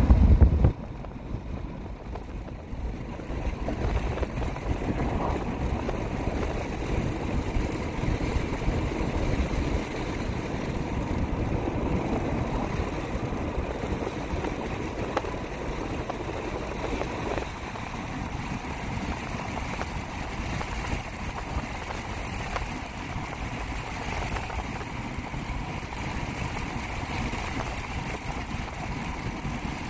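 Steady engine and road rumble heard from inside a moving car, with a brief knock at the very start as the recording begins.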